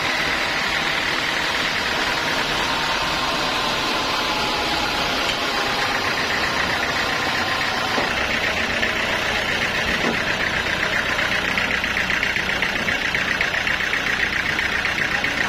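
Sawmill saw running steadily, a constant mechanical noise. About halfway through, a fast pulsing whine grows stronger.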